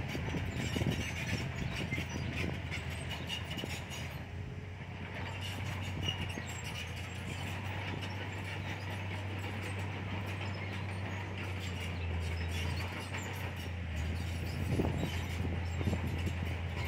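Komatsu D31PX crawler bulldozer working: its diesel engine runs steadily, with a continual clanking from the steel tracks.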